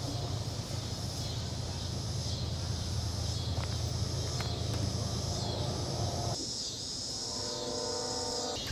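Outdoor garden ambience: insects buzzing high in slow rising and falling waves over a steady low hum. About six seconds in the hum stops and a faint pitched drone takes over.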